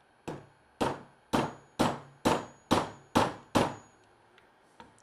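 Small steel-headed hammer giving gentle taps on the head of a 5 mm bolt threaded into a chainsaw oil pump, driving the pump into its gear housing. Eight evenly spaced taps about two a second, each with a brief metallic ring, the first one lighter.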